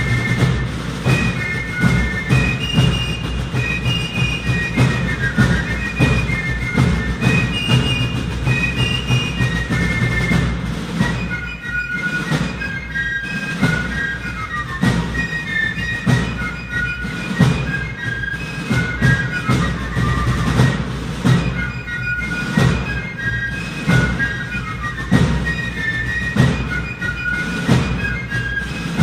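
Background music: a high melody of held notes over a steady low beat.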